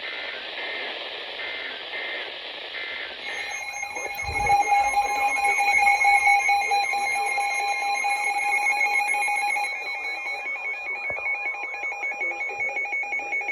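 Emergency Alert System tones over radio hiss: a few short warbling data bursts, then from about three seconds in the loud, steady two-tone attention signal, which marks the start of a new alert.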